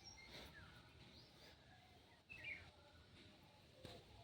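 Faint chirping of small birds: a few short calls scattered through, the clearest about two and a half seconds in.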